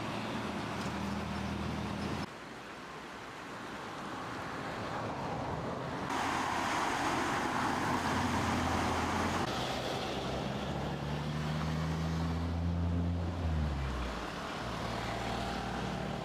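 Muddy floodwater rushing and churning against a concrete bridge, loudest for a few seconds in the middle, over the steady hum of vehicle engines. Near the end one engine's note drops as it slows or passes.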